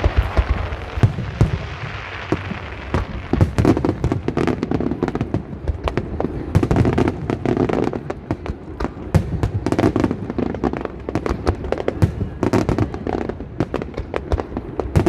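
Aerial fireworks display going off in rapid succession: a dense run of sharp bangs and crackles, several a second, over a low rumble.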